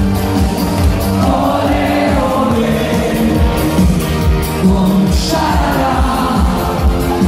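Live dance band playing: a woman sings lead over electric guitars and keyboards, with a steady beat.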